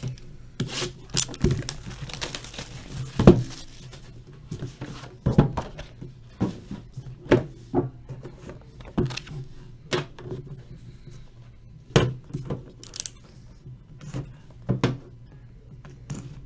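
Cardboard trading-card box and its inner case being opened and handled on a tabletop: a string of separate knocks, taps and thunks, the loudest about three seconds in, with a brief scrape near the end.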